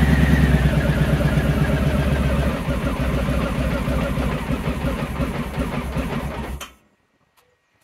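Honda ST1100 Pan European's V4 engine running in gear with the rear wheel spinning freely on the lift, with no clanging or banging from the gearbox. A high whine fades over the first second or two, the sound eases slightly about two and a half seconds in, and the engine cuts off suddenly near the end.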